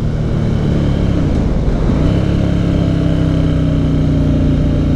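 Motorcycle engine running steadily while the bike is ridden along a country road. The engine note dips about a second in, then settles again at a steady pitch about two seconds in.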